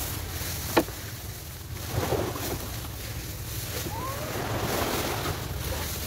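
Wind buffeting the microphone, with a sharp click a little under a second in. Scratchy broom sweeping on the ground comes around two seconds in and again from about four to five and a half seconds.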